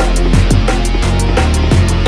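Loud electronic background music with a fast, heavy drum beat and deep bass.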